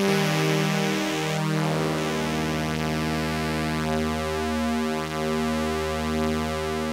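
Korg Minilogue analog polysynth playing a sustained ambient chord pad, its tone moved gently by a slow LFO on the oscillator shape. A new chord comes in about a second and a half in and is held.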